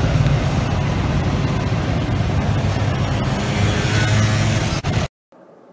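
Diesel switcher locomotive and street traffic running, a steady low engine rumble that cuts off suddenly about five seconds in.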